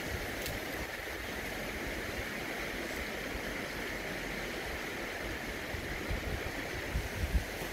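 Steady rushing of a flowing river or stream, with a few low thumps near the end.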